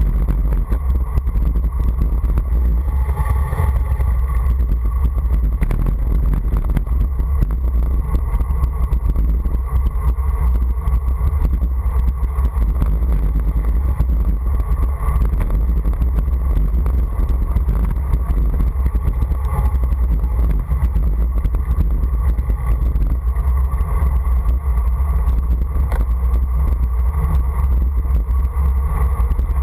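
Strong wind buffeting on the camera microphone during a fast downhill ride, a steady low rumble with the hiss of tyres on asphalt underneath.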